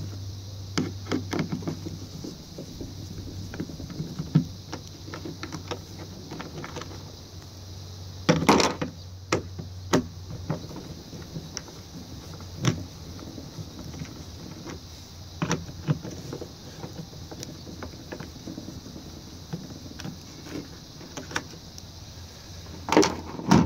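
Hand screwdriver turning screws out of a plastic ice chest lid hinge: runs of small clicks and scrapes, broken by a few louder knocks and taps as the tool and hinge are handled.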